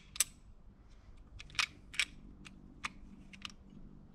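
Irregular sharp metallic clicks and clacks of a Polymer80 Glock 17-pattern pistol being handled and reassembled as its recoil spring is swapped, the loudest about a second and a half and two seconds in.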